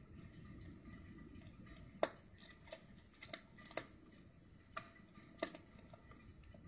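A string of sharp little clicks and taps, about eight of them over three and a half seconds, the loudest about two seconds in: a screwdriver and small screws being worked out of the corners of a laptop's LCD screen.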